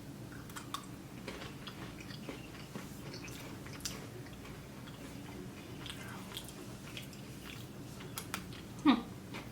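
Almond Crush Pocky sticks, chocolate-coated with almond bits, being bitten and chewed, with scattered small crunches. A brief voiced sound comes near the end.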